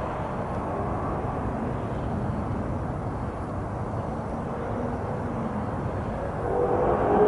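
Steady outdoor background rumble, like distant traffic, that swells slightly near the end.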